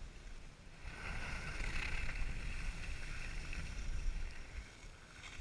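Skis sliding on snow in a downhill run, a hiss that swells about a second in and eases near the end, over a low rumble of wind on the microphone.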